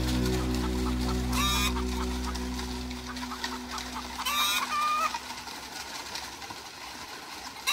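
A fowl calling in short squawks, once about every three seconds, over the end of a song's backing music that fades out a few seconds in.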